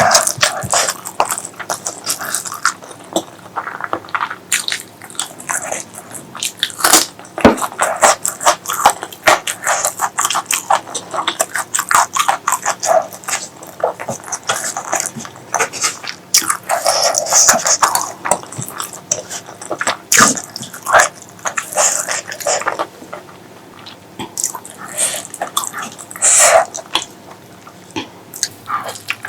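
Close-miked eating sounds: wet chewing and lip-smacking on spicy pork leg curry with rice, a dense run of irregular clicks and smacks.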